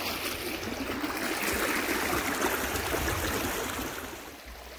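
Shallow river water running over rocks, a steady rush that drops in level near the end.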